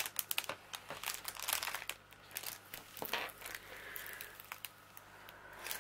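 Clear cellophane covering on a diamond painting canvas crinkling under hands smoothing it flat: irregular crackles, busy in the first couple of seconds, then sparser.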